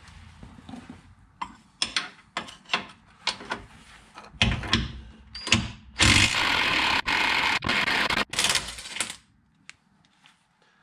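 Makita 18V cordless impact wrench hammering on a tight suspension nut for about three seconds, with two brief pauses, after some scattered clicks and knocks as the tool is handled.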